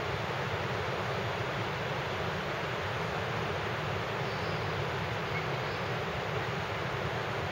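Steady, even rushing noise with no distinct events, at a constant level throughout.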